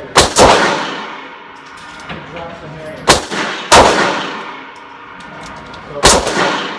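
Handgun firing Federal aluminum-cased ammunition: five sharp shots, a quick pair near the start, another pair about three seconds in and a single shot near the end. Each shot is followed by a ringing echo that dies away over about a second.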